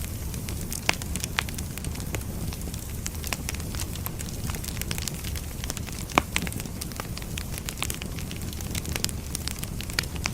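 Burning firewood crackling and popping with irregular sharp snaps over a steady low background noise; the loudest pop comes about six seconds in.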